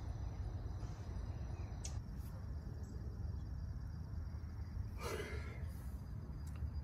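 A man's tired sigh, about five seconds in, over a steady low rumble.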